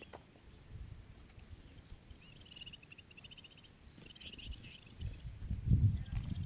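Small wild birds chirping in short, rapid trills. Near the end come low rumbling thuds, louder than the chirps.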